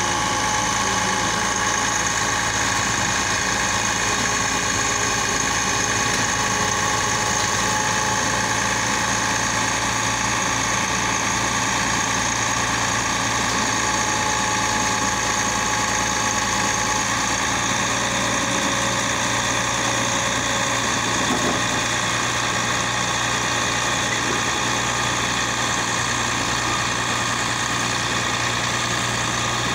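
Orkel MP2000 Compact silage baler-wrapper running steadily while baling chopped silage: a constant engine drone mixed with the machine's own running noise, unchanging throughout.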